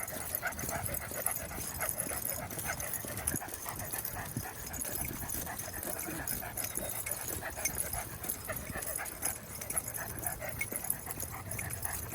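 Dogs panting and whining, with many short sounds crowding over one another.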